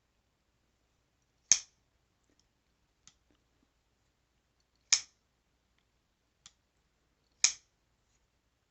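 Boker Kalashnikov XXL automatic knife fired open three times with its fire button, each a sharp spring-driven snap of the blade locking out. Fainter clicks fall between them as the blade is folded shut.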